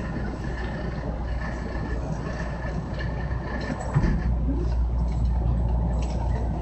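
JR West 225 series electric train pulling out of a station, heard from inside the front cab: a steady low rumble with a faint electric motor tone, getting louder about four seconds in as it gathers speed.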